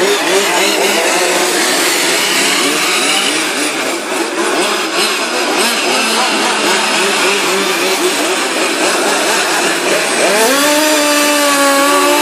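Several small two-stroke petrol engines of 1:5-scale RC Formula 1 racing cars running together, their overlapping buzzing pitch rising and falling as the cars accelerate and brake around the corners. About ten seconds in, one nearby engine climbs in pitch and then holds steady.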